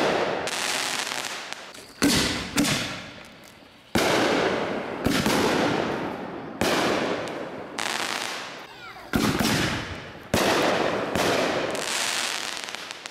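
Aerial fireworks bursting in quick succession, about ten loud bangs roughly a second apart, each followed by a rush of crackling that fades away.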